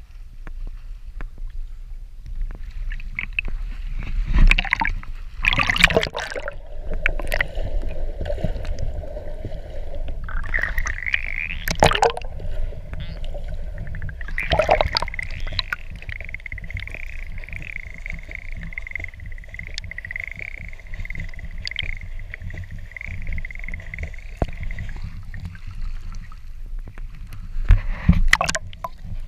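Water sloshing and splashing around a waterproof camera at a swimmer's hand as it is dipped under and lifted out, with a low muffled rumble throughout and a few loud splashes. While the camera is submerged, a steady whine is heard through the water.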